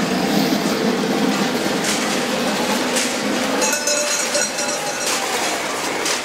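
A long string of empty tin cans dragged along an asphalt street, clattering and scraping continuously.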